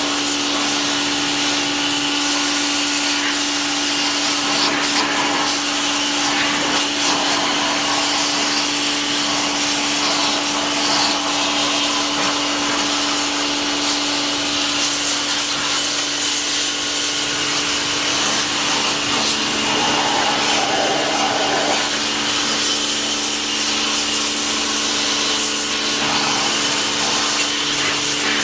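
Washing machine running, giving a steady motor hum with a constant hiss over it.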